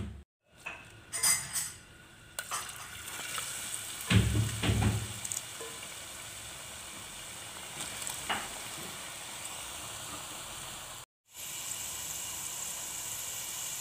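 Potato fries deep-frying in hot oil in a steel pot: a steady sizzle that starts a couple of seconds in, after a few clinks. A loud low thump comes about four seconds in.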